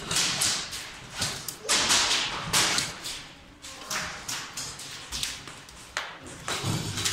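Airsoft guns firing irregular single shots and short bursts, the sharp cracks echoing in a large hall.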